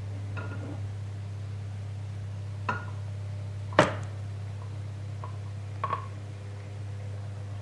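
A few short, sharp clicks or knocks over a steady low electrical hum; the loudest comes just under four seconds in, and a quick double one comes near six seconds.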